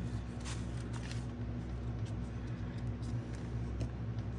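Steady low hum with a few faint rustles and light taps of scrap paper being laid down and pressed onto the collage.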